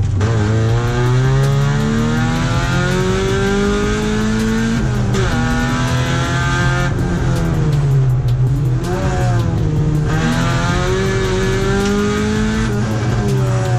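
A competition car's engine revving hard under full throttle, its pitch climbing for a few seconds and then dropping sharply at each gear change or lift, four or five times over.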